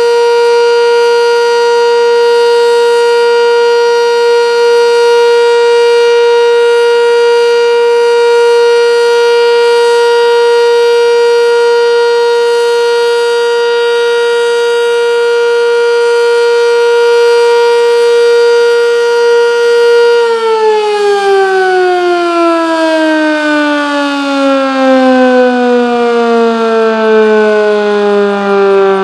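Sentry 10V outdoor warning siren sounding the steady Full Alert tone, then, about twenty seconds in, cutting power and winding down, its pitch falling steadily and the loudness wavering as it slows.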